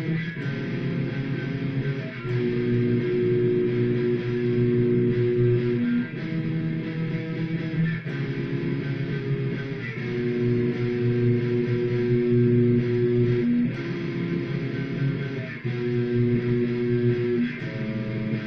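Guitar playing a slow instrumental piece of held chords that change about every two seconds, recorded through a phone's microphone with thin, poor sound.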